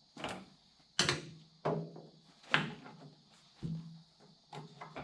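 Loader hydraulic hose quick-couplers being handled and pushed onto a Kubota M6060 tractor's couplers: a string of about six sharp metallic clicks and clanks, some with a short ring after them.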